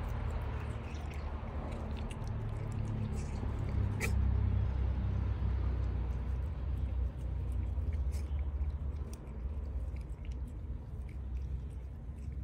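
Cat chewing and tearing at grass: a run of small, uneven crunchy clicks, one sharper click about four seconds in, over a low steady rumble.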